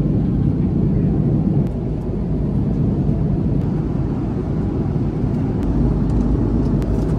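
Jet airliner cabin noise in flight: the steady low rumble of engines and airflow heard from inside the cabin.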